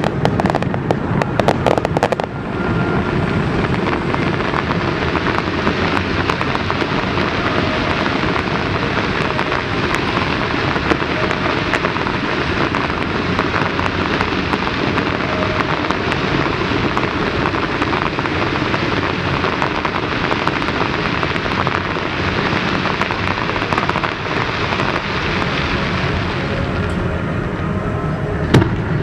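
Fireworks display: a run of sharp bangs in the first two seconds, then a dense, steady rush of crackling and rumbling that eases off near the end, with one sharp bang just before the end.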